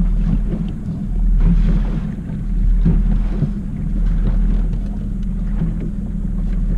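Four-stroke outboard motor running steadily at low trolling speed, a constant low hum, with wind buffeting the microphone.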